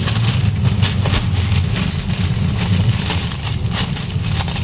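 Black plastic courier pouch crinkling and rustling as it is handled and opened, over a steady low rumble.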